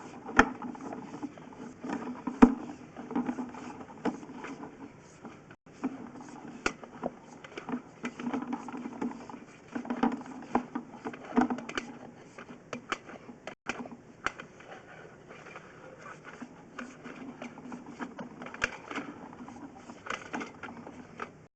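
Sewer inspection camera on a rigid push cable being worked through a 4-inch ABS sewer lateral: irregular knocks, clicks and scraping as the head and cable rub and bump along the pipe and into its bends.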